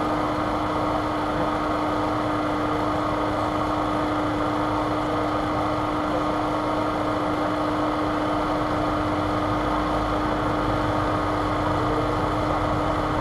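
Steady mechanical hum holding one constant pitch, over a continuous even background noise.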